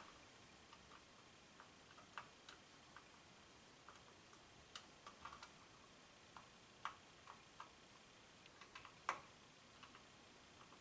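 Faint, irregular small clicks and ticks of a precision Torx T5 screwdriver turning tiny screws in a plastic security-camera housing, with a slightly louder click about nine seconds in.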